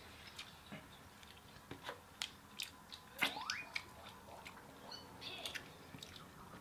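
Faint eating sounds from a lobster being picked apart: scattered clicks and small cracks of shell, with a short rising squeak about three seconds in.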